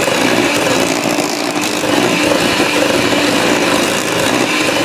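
Electric hand mixer running steadily, its beaters churning butter and brown sugar in a stainless steel bowl.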